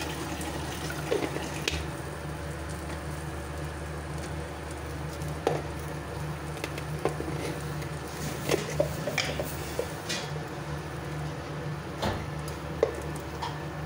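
Peanuts, curry leaves and chillies frying in a little oil in a metal kadhai: a steady sizzle, with scattered clicks and scrapes of a metal spatula against the pan as they are stirred.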